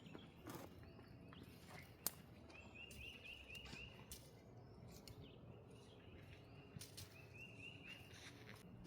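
Quiet outdoor ambience with a bird singing faintly: two runs of short, quickly repeated chirps, the first about two and a half seconds in, the second near the end. A single sharp click about two seconds in.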